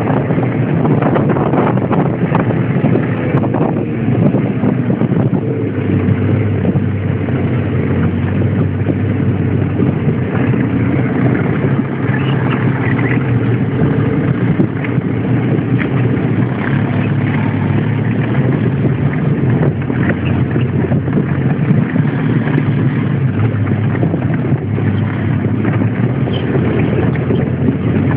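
Off-road vehicle's engine running steadily while driving, with scattered knocks and rattles as it goes over rough ground.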